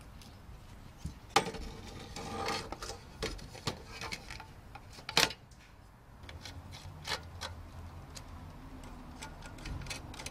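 Clicks, taps and knocks of sheet-metal chassis parts and screws being handled and fitted together during reassembly of a Macintosh 128k, with two sharper knocks about a second and a half in and about five seconds in. A faint low hum runs through the second half.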